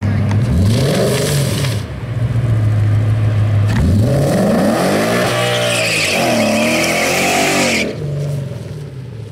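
Ford Mustang's 5.0-litre V8 revving hard through a burnout on drag slicks, rear tyres spinning with a loud hiss and squeal. A short rev-up comes first, then a longer one about four seconds in with the revs climbing and falling, cut off abruptly near the end.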